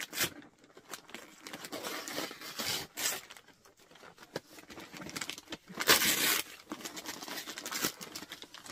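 Wrapping paper torn and crinkled off a gift box in a series of rips, the loudest about six seconds in.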